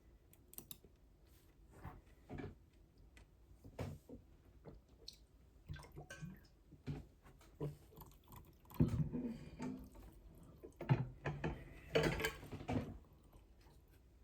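Close-up eating sounds: wet chewing and small mouth clicks, scattered at first and busier and louder in the second half.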